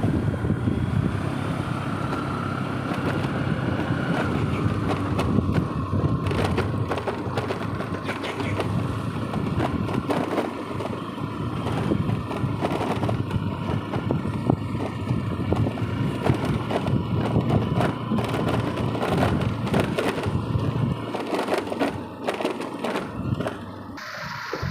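Wind buffeting and crackling on the microphone of a moving scooter, over a steady road rumble, with dense crackles throughout.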